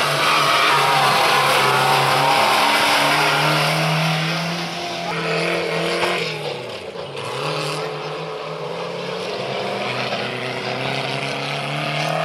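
Off-road race trucks' engines running hard in a steady, loud drone. About six seconds in the engine note dips sharply and climbs back up.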